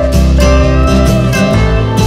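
Background music: guitar with sliding, bending notes over a steady bass line.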